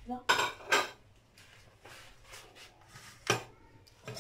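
Kitchen handling noises: two short knocks or rustles within the first second, then a sharp metallic clink about three seconds in from a spoon in a small saucepan of tomato sauce.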